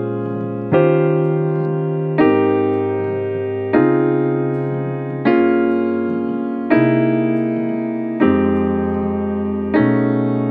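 Piano playing a slow progression of jazz chord voicings in A-flat, one full chord struck and held about every second and a half, seven chords in all, cycling back through the progression.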